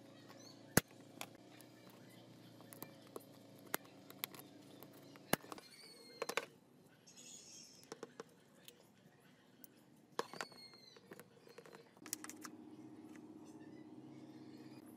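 Sharp, irregular clicks and taps from handling and fitting together an angle grinder's trigger switch assembly, metal contact plates in a plastic housing. The loudest click comes just under a second in. A steady low hum runs underneath and grows a little louder near the end.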